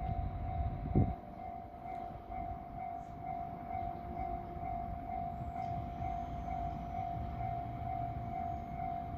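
Japanese railway level-crossing warning bell ringing steadily over the low rumble of a train at the crossing, with a single heavy thump about a second in.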